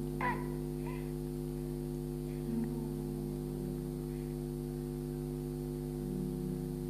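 A steady electrical hum made of several even tones, with a brief high squeak about a quarter second in and a couple of faint low sounds later on.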